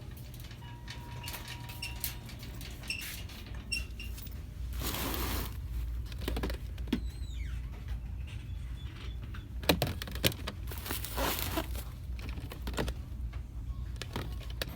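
Shop ambience: a steady low hum with scattered clicks, knocks and light clatter, and two longer rustles about five and eleven seconds in, as goods are handled.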